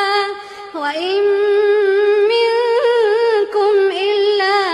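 Quran recitation (tilawat) in a high, sung voice drawing out one long melodic note with small turns and wavers in pitch. The note briefly falls off under a second in, then is taken up again and held.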